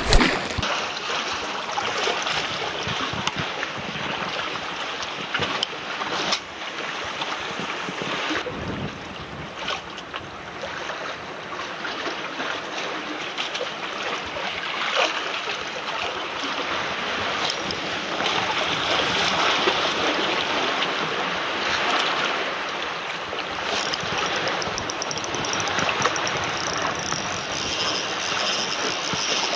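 Sea waves washing and splashing against the rocks and concrete blocks of the shoreline: a steady rushing that swells and eases in loudness, with one sharp knock right at the start.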